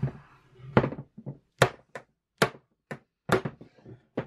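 Rubber mallet striking a bolt threaded a few turns into the bottom of a RockShox Reba fork's lower leg, a series of about eight sharp knocks at roughly two a second, to knock the lowers loose from the upper tubes.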